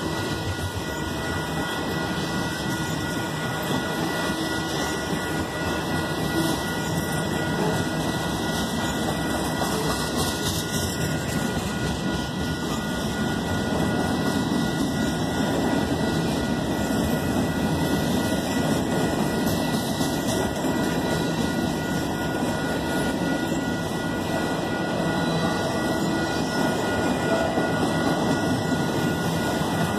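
Freight train cars rolling past at speed: a steady, unbroken rumble of steel wheels on the rails, with a faint steady high tone above it.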